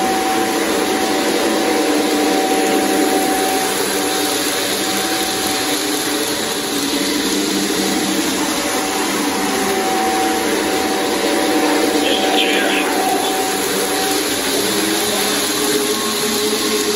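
Lionel Legacy E6 AA model diesel locomotive set running on O gauge three-rail track: the onboard diesel engine sound plays steadily over the running noise of the motors and wheels, without letting up.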